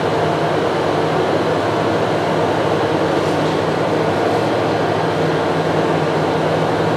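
Steady mechanical hum of room machinery: a low drone with a higher steady tone above it over an even hiss, unchanging throughout.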